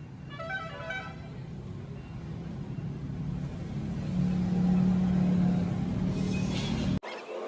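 An engine running with a low rumble that grows louder, holding a steady low hum for a couple of seconds past the middle. A short horn-like toot sounds near the start, and the sound cuts off abruptly near the end.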